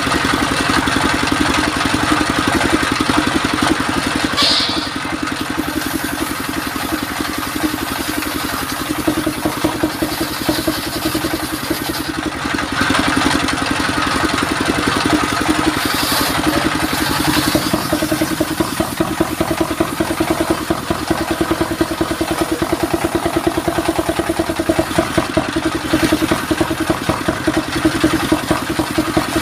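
Stationary engine running steadily with a fast, even pulse, belt-driving a table circular saw, while the saw blade rips mahogany planks.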